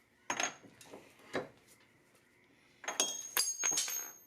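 Metal hand tools clinking against the wheel hub while a rusty axle nut is worked loose: a sharp clank with a brief metallic ring, another about a second later, then a quick run of clinks and clanks near the end.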